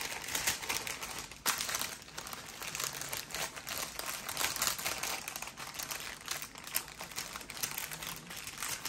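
Clear plastic bags crinkling and rustling as they are handled, with a sharper crackle about a second and a half in.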